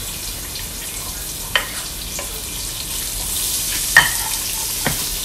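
Sliced red onions sizzling in hot oil with sautéed garlic in a pot, a steady hiss. A few sharp knocks of the cooking utensil break through, three times, the loudest about four seconds in.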